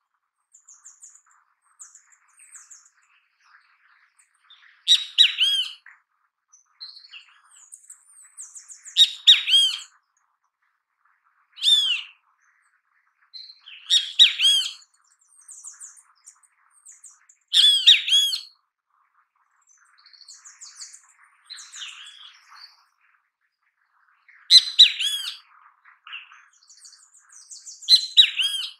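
Great kiskadee calling: loud, ringing calls of several quick arched notes, repeated about every three to four seconds, with softer chirps in between.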